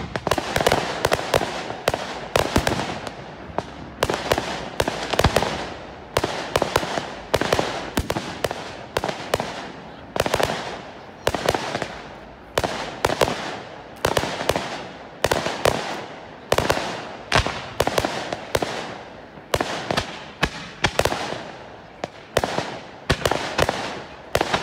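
Fireworks display: aerial shells bursting in quick succession, a sharp bang about every half second to second, each followed by a fading echo.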